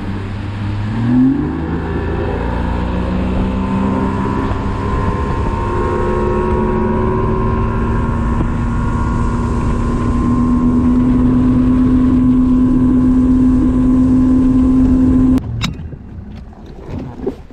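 Bass boat's outboard motor accelerating, its pitch climbing over the first couple of seconds, then running steadily at speed with a constant rush of wind and water. The sound stops abruptly near the end.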